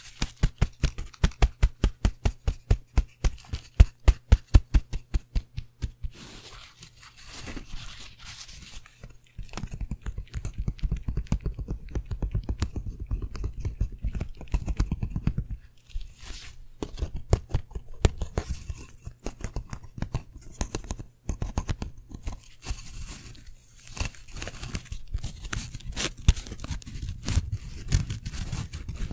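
Thin wooden slats of a carved folding fan handled close to a microphone. For about the first six seconds they make a quick, even run of sharp clicks, about five a second. After that comes a denser, irregular clatter and rustle as the fan is worked and spread open.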